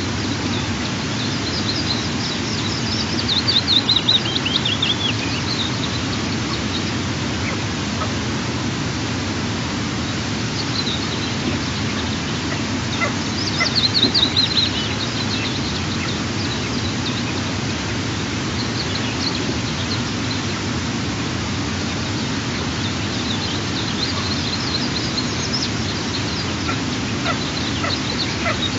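Eastern imperial eaglets giving high, thin chirping calls in quick runs that fall in pitch, with two louder bouts a few seconds in and around the middle and scattered calls near the end, over a steady low rush of background noise.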